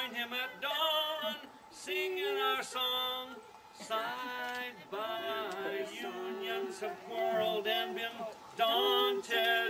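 A man and a woman singing a duet, holding notes with a wavering vibrato.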